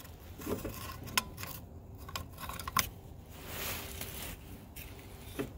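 Metal push-down-and-turn filler cap being fitted back onto the hydraulic oil tank neck of a Cat 302 mini excavator by hand: scattered metallic clicks and scrapes, the sharpest a little under three seconds in.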